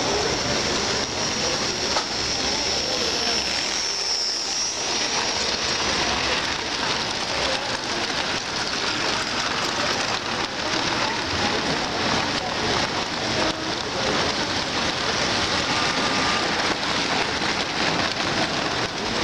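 American Flyer S-gauge model freight train passing close by, its wheels making a steady rumble and clatter on the metal rails.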